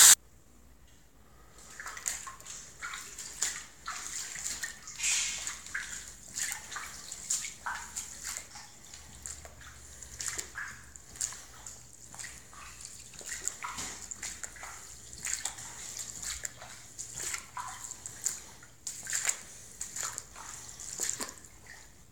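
Footsteps splashing through shallow standing water on a flooded floor, an irregular string of sloshing steps about two a second, starting about two seconds in.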